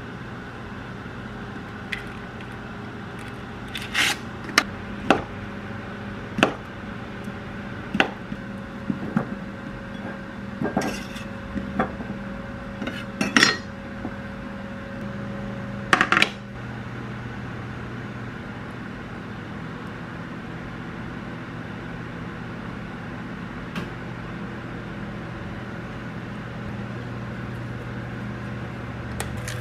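A kitchen knife knocking on a wooden cutting board and dishes clinking as cherry tomatoes are cut and set out in a salad bowl. The sharp knocks and clinks come irregularly through the first half and stop a little past halfway, leaving only a steady low hum.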